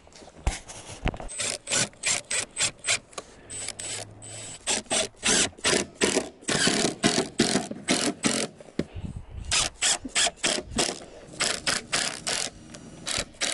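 Makita brushless cordless impact driver driving screws into timber, its rattling run starting and stopping in many short bursts, with a few longer runs in the middle.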